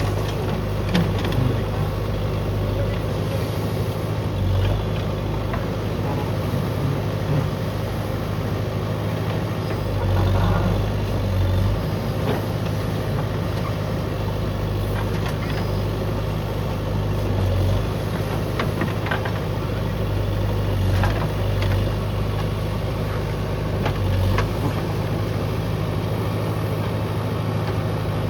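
JCB backhoe loader's diesel engine running steadily with a deep hum while it digs, with occasional short knocks and clunks scattered throughout.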